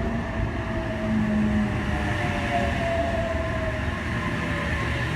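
Sydney Trains H set (OSCAR) electric multiple unit moving at the platform: a steady rumble with a high whine from its traction equipment that drifts slightly in pitch.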